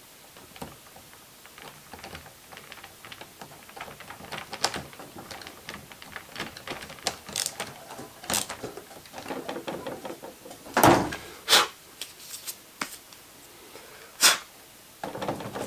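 Irregular clicking and knocking of hard plastic parts being handled during a robot vacuum repair, with the loudest knocks a little past the middle and a sharp one near the end.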